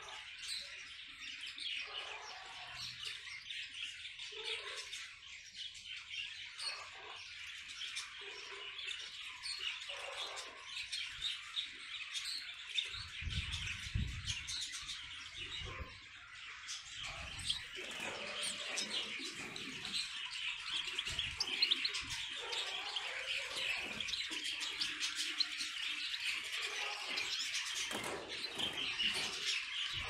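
Small caged songbirds, canaries and finches, chirping and twittering continuously, the chatter growing fuller in the second half. A brief low rumble about 13 seconds in.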